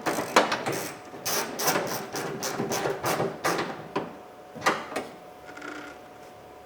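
Hand ratchet clicking in quick back-and-forth strokes as a 10mm socket tightens the door-handle bolt inside a car door, stopping about five seconds in.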